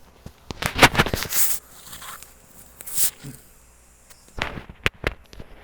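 A few sharp rustles and knocks: a long scuffing rustle about a second in, another near the middle, then quick clicks near the end.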